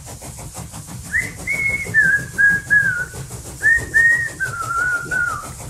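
A person whistling a tune: a run of held notes, each stepping lower, in two phrases with a short break between, starting about a second in. A low steady rumble runs underneath.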